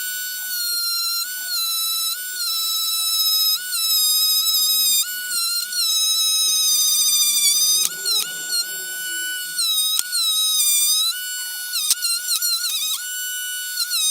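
Background music: a single high melody line stepping up and down between a few notes, with a slight waver on the held notes.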